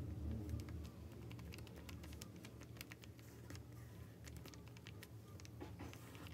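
Faint, irregular small taps and paper rustles as fingertips press and smooth a paper label strip onto a sketchbook page.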